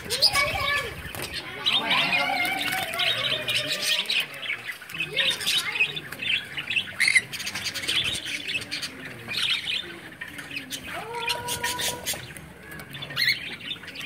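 Parrots squawking and chirping in short, shifting calls, mixed with sharp little clicks, with one held, steady call about eleven seconds in.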